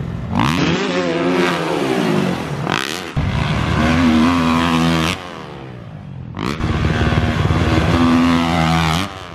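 Motocross dirt bike engines revving hard on a dirt track, the note climbing and dropping again and again through throttle and gear changes, with a few abrupt jumps in loudness.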